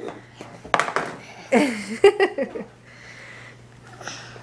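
A child's short wordless vocal sounds about a second and a half in, with a few sharp knocks from objects being handled.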